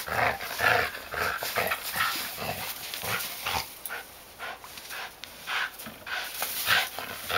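A Samoyed's short, breathy play noises, a few a second, as it mouths and tugs at a rope leash.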